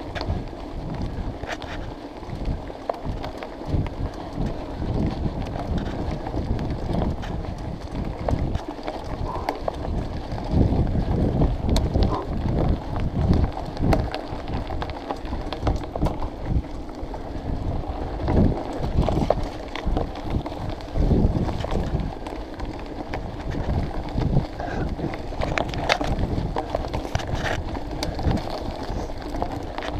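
Mountain bike ridden along a forest singletrack: wind buffets the microphone throughout, over many short knocks and rattles as the bike runs over rough ground.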